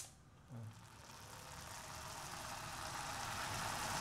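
Diced carrots and moong dal in an open pressure cooker sizzling on a gas burner, a hiss that grows steadily louder as the remaining water cooks off.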